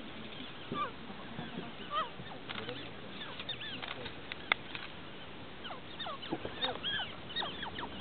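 Many short, overlapping bird chirps and whistles from wild birds calling around the lakeside, with a few sharp clicks and one loud click about halfway.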